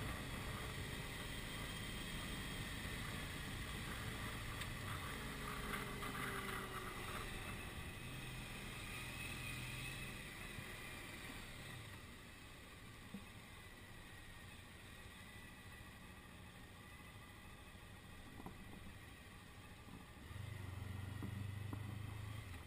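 Touring motorcycle engine running at low speed with wind rush, heard from a helmet-mounted camera. The engine is louder at first, eases off about halfway through as the bike slows, and rises again briefly near the end.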